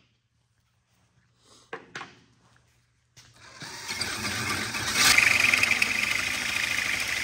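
A couple of light knocks, then an electric drill spins up a hole saw in a tube notcher a little after 3 s and cuts steadily into a steel tube, with a high-pitched cutting whine over the motor.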